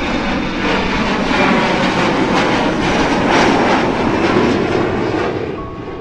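Jet airliner engine noise, a steady loud rush that fades out near the end.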